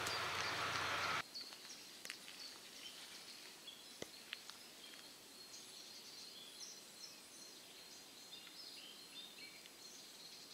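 Faint woodland ambience with distant birdsong, made of short high chirps, and a few scattered light ticks. A steady hiss in the first second cuts off suddenly.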